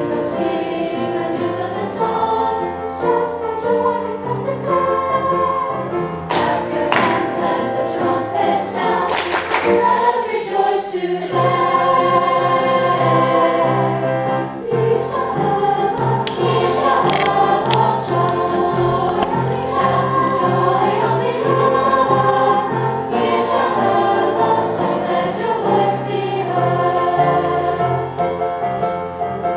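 High school choir of mixed voices singing a song in parts, getting quieter near the end.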